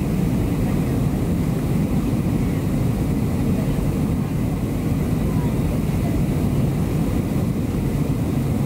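Steady cabin noise of a Boeing 737-700 on final approach with flaps extended: its CFM56 turbofans and the rushing airflow heard from inside the cabin, deep and even.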